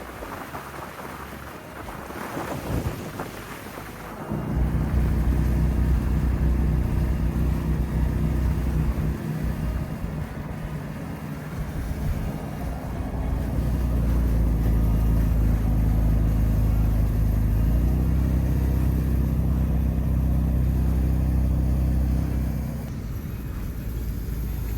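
Jeep's engine and road noise heard from inside the cabin while driving. It starts with a few seconds of wind rumble on the microphone, then a steady low engine drone sets in about four seconds in, shifts pitch twice and eases off near the end.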